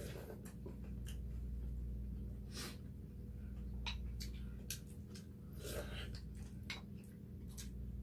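Spoons and chopsticks clicking against bowls during a meal, with scattered chewing sounds, over a steady low hum.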